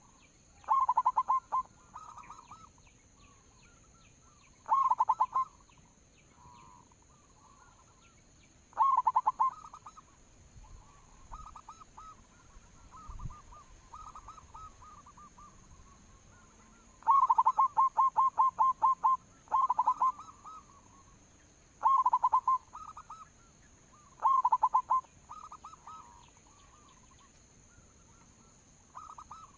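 Zebra doves (perkutut) cooing: bursts of rapid, staccato coos repeated every few seconds, with softer, slower cooing in between. The longest run of notes comes just past the middle.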